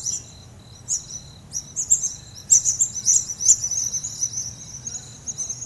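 Night chorus of crickets: a steady, pulsing trill with many quick, high chirps over it, busiest near the middle.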